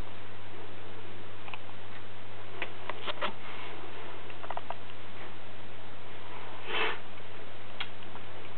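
Boa constrictor swallowing a mouse: a scattering of small clicks and rustles, and one short breathy puff about seven seconds in, over a steady hiss and low hum.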